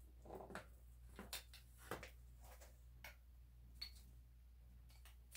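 Faint, irregular clicks and light taps of metal parts being handled as a bicycle fork's steerer tube is slid back up into the freshly greased head tube, over a low steady room hum.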